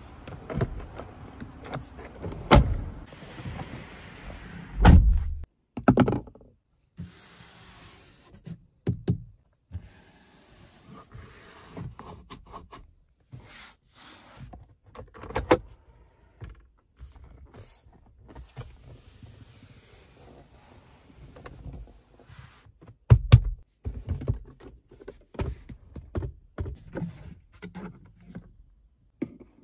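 Hands working a Jeep Compass's interior trim: a series of plastic clicks, knocks and thunks from the seat-adjustment levers, the dashboard and the sun visor's mirror cover, with short quiet gaps between. The heaviest thunks come about five seconds in and again past the twenty-second mark.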